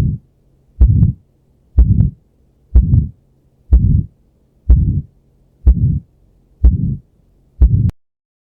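Recorded heart sounds with a systolic ejection murmur of the kind heard in aortic or pulmonary stenosis: low and harsh, rising and falling between the first and second heart sounds. The beats come about once a second and stop near the end.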